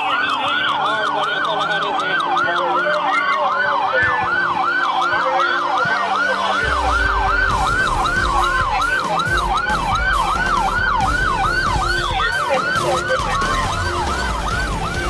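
Police car siren on yelp, a fast up-and-down wail repeating about three times a second, with a slower wail from a second siren underneath. A low rumble joins in about halfway through.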